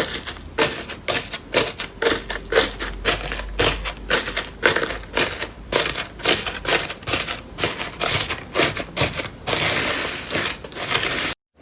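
Slime being squeezed and pressed by hand, giving an irregular run of crisp clicks and crackling pops, several a second. Near the end the crackling turns denser and more continuous, then stops abruptly.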